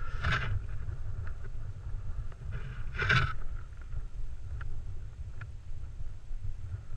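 Wind buffeting the camera microphone: a steady low rumble, with two louder rushes of noise, one just after the start and one about three seconds in, and a few faint clicks.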